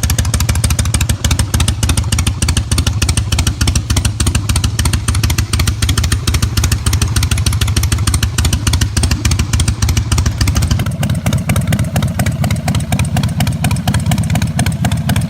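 Motorcycle engine running steadily with a fast, even beat of exhaust pulses; about eleven seconds in its sound turns deeper and fuller.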